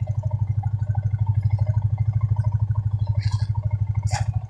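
Small motorcycle engine running at low revs, a steady rapid putter as it rolls slowly. A short sharp click about four seconds in.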